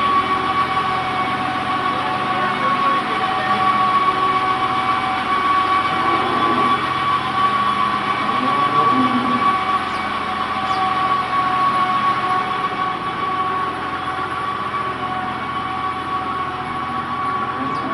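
Tractor-driven TMR feed mixer wagon running steadily as it lays out feed, engine and mixer turning together, with a steady high-pitched whine.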